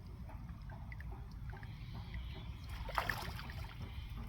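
Water sloshing and splashing faintly, with a sharper splash about three seconds in, over a steady low rumble.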